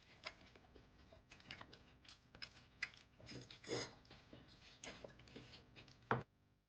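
Faint scattered clicks and small handling noises at an uneven pace, with a short, somewhat louder sound about six seconds in.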